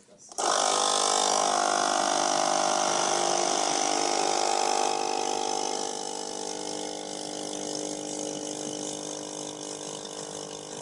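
Nespresso coffee machine's pump running as it brews, a steady mechanical buzz with a hum under it. It starts about half a second in and eases a little about halfway through.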